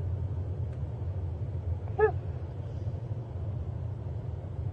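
A steady low rumble with a single short, yelp-like dog call about two seconds in.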